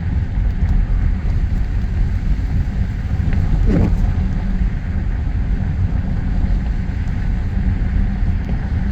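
Steady low rumble of a car driving slowly, heard from inside the cabin: tyre, road and engine noise.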